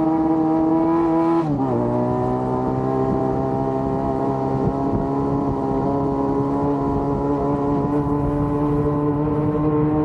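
Yamaha FZ6 Fazer 600 inline-four motorcycle engine running at high revs under way. Its pitch falls in one quick step about a second and a half in, then holds steady and creeps slowly up.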